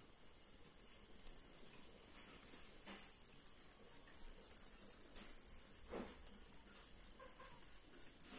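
Faint, irregular scratching and rustling of a kitten's claws and paws on a cloth-covered hand and a wooden floor, with a soft knock about six seconds in.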